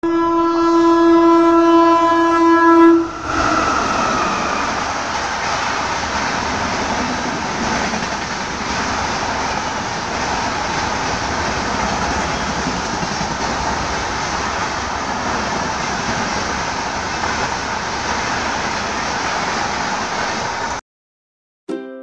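WAP-5 electric locomotive's horn sounding one long steady blast for about three seconds, followed by the even rushing noise of the train's coaches passing at high speed. The passing noise cuts off abruptly near the end.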